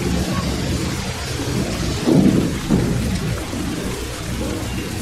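Steady rain falling with thunder rumbling underneath; the rumble swells about two seconds in.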